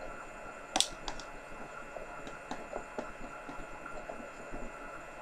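Plastic spoon clicking and tapping against a plastic cup as slime is stirred: a few sharp, short clicks, the loudest about a second in and another near the end, over a steady room hum.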